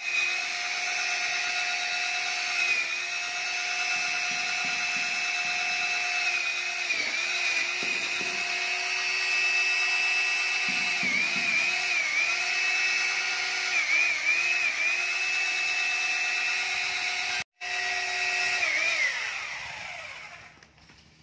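Electric power tool motor running at high speed with a steady high whine. Its pitch dips briefly several times as it takes load, then it winds down near the end.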